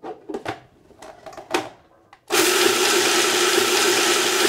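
A few clicks as the food processor's lid and pusher are fitted, then about two seconds in the food processor starts and runs steadily, grinding toasted cashews and seeds into a meal.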